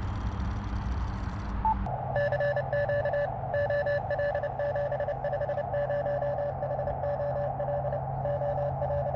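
Elecraft KX2 transceiver's speaker: receiver hiss, a short beep as the band is switched to 17 meters about two seconds in, then a Morse code (CW) signal keyed on and off in dots and dashes on a single steady tone over the band noise.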